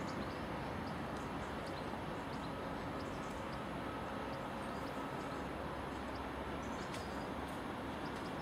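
Class 66 diesel locomotive's two-stroke V12 engine running steadily as it hauls a freight train of gypsum container wagons, an even rumble with no change in level.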